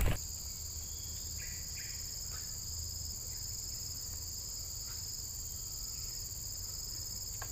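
Steady, high-pitched insect chorus, a continuous shrill drone in several bands, over a faint low hum, with a few faint short chirps about a second and a half in.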